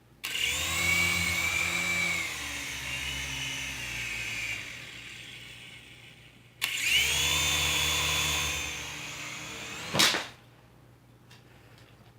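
Toy remote-control helicopter's small electric motor and rotors whining in two runs. The first starts suddenly and winds down after about four seconds. The second starts abruptly and cuts off with a sharp knock about ten seconds in.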